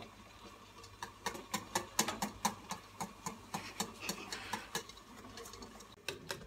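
A whisk clicking and tapping against the side of a stainless steel pot as a mixture is stirred: quick, uneven clicks, several a second.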